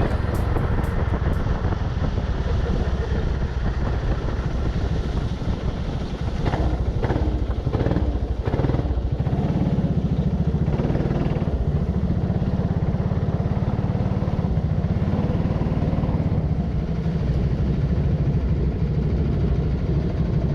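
Go-kart engine running hard on track, a steady loud rumble, with a few brief sharp knocks or clatters around the middle.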